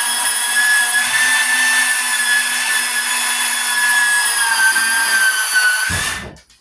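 Electric power tool motor running at a steady high-pitched whine for about six seconds, its pitch sagging slightly just before it cuts off.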